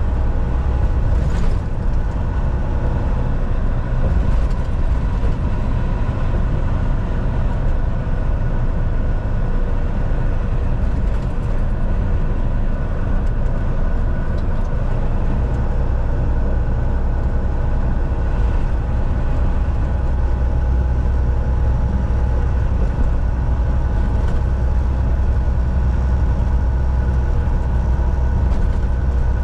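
Steady in-cab drone of a Volvo semi-truck cruising at highway speed: deep diesel engine rumble mixed with tyre and road noise, with a faint steady whine over it.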